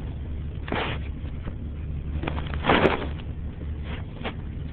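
Steady low rumble of a car heard from inside the cabin, with a few brief rustles, the loudest a little under three seconds in.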